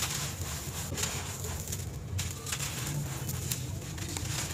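Hands squeezing and crumbling clumps of dry, gritty sand-dirt: a continuous fine crunching crackle of many small clicks as the clumps break and grains trickle down. The audio is sped up to 1.5x.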